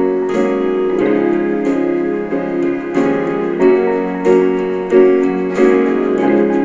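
Instrumental break in a song: piano chords struck in a steady rhythm, a new chord about every two-thirds of a second.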